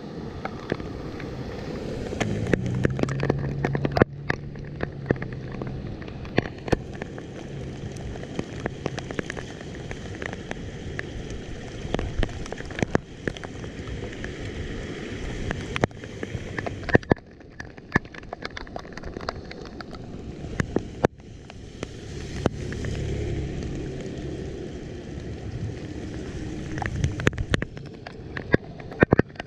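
Rain falling steadily with many scattered sharp ticks and crackles. A low hum rises and fades twice, near the start and again near the end.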